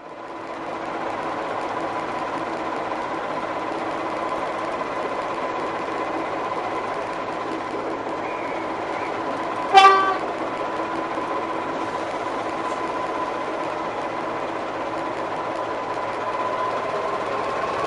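Diesel shunting locomotive's engine running steadily, with one short horn toot about ten seconds in.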